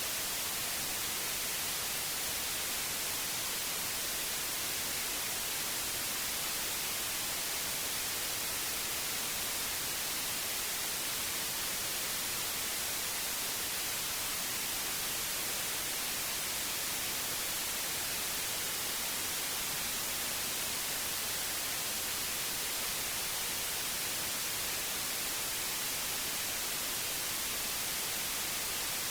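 Synthetic white noise: a steady, even hiss with no change in level.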